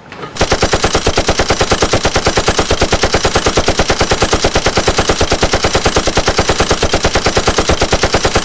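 A rapid, perfectly even stream of sharp pulses, about ten a second, like machine-gun fire. It starts a moment in and holds steady, an edited-in soundtrack rather than sound from the scene.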